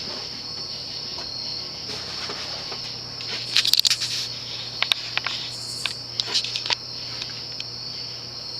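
Evergo ceiling fan running with a steady low hum under a steady high-pitched whine, while its metal pull chain clicks and rattles in a few quick bursts from about three and a half to seven seconds in, as the variable-speed chain is worked.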